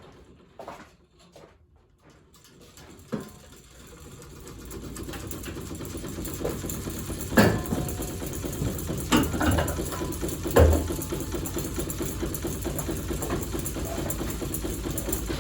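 Hampton Bay Littleton ceiling fan, its motor rusted and its bearings worn, spinning up. A rattling hum builds over a few seconds and then holds steady, with a few loud knocks in the middle.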